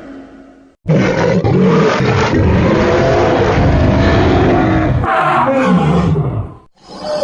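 Kaiju monster roar sound effect: a loud, wavering roar starts abruptly about a second in and lasts about four seconds, then runs into a shorter roar that falls in pitch before cutting off. The tail of the previous effect fades out at the start.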